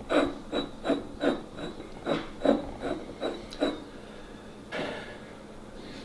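A thumb rubbing and scratching at the paper label of a glass beer bottle: about ten short rasping strokes in quick succession, then a single stroke near the end.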